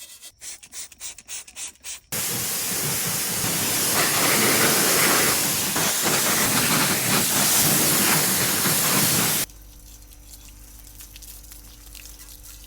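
Quick rhythmic rubbing strokes, about three a second, then a pressure washer jet spraying with a loud steady hiss for about seven seconds. The spray cuts off suddenly, leaving a low steady hum.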